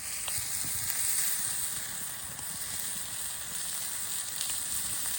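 Breaded venison steaks frying in a pan over a campfire: a steady sizzle with a few faint ticks.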